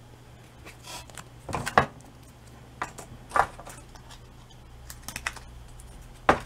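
Short clicks and taps from the corrugated-cardboard and foam roof model being handled and set down on the worktable. The taps are scattered and irregular, with the loudest cluster between about one and a half and two seconds in.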